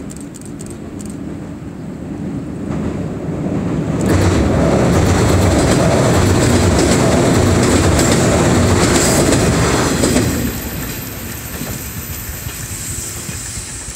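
JR West 115 series electric train crossing a steel girder bridge. Its rumble builds as it approaches, then turns suddenly loud with a rhythmic clatter of wheels over rail joints while the cars pass close by for about six seconds. It then falls away as the train recedes.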